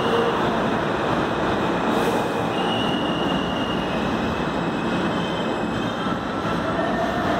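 New York City subway F train of R160-series cars pulling into an underground station and slowing, with a steady loud rumble of steel wheels on rail. Short high squeals come and go as it brakes, a lower squeal near the end as it nears a stop.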